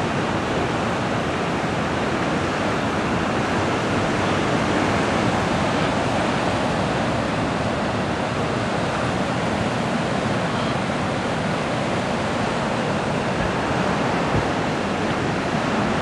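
Ocean surf: a steady wash of breaking waves.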